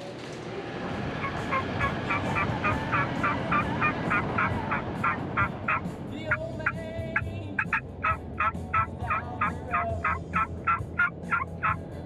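Turkey yelps blown on a mouth call, a long run of short evenly spaced notes at about three or four a second, broken once about six seconds in by a short steadier note and then resuming. Underneath is the steady low road noise of a pickup truck's cab.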